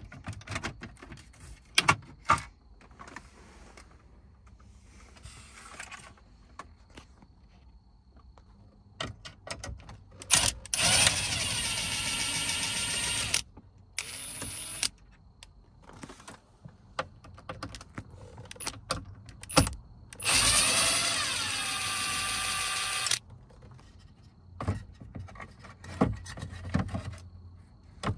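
Cordless drill-driver running in two spells of about three seconds each, about ten and twenty seconds in, with a brief burst between them, backing out screws from the dashboard's centre display frame. In the second spell the pitch falls and then levels off. Scattered clicks and knocks of plastic trim and parts being handled fill the rest.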